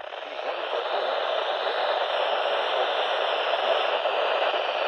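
Radio static: a weather radio receiver putting out a steady hiss with no clear signal, with a faint steady whine under it.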